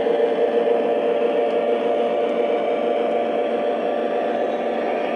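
Model Southern Pacific diesel switcher running slowly on its track under power: a steady diesel-engine hum from the locomotive, with motor and wheel noise.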